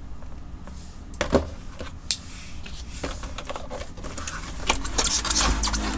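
A plastic laptop case and its packaging being handled: scattered clicks and taps, then a denser run of crinkling and clicking over the last second or two.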